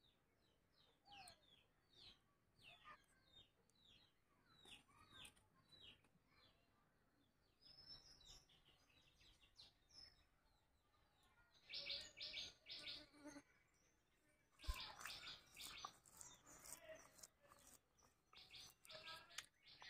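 Faint birds chirping in short, quick falling notes that repeat throughout, thickening into brief flurries about two-thirds of the way through, with one sharp click near the same point.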